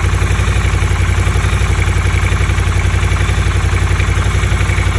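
2022 Triumph Scrambler 1200 XC's 1200 cc parallel-twin engine idling steadily with an engine knock that appeared right after a dealer service. The dealer puts it down to the valves; the owner doubts that and suspects over-revving or the wrong oil.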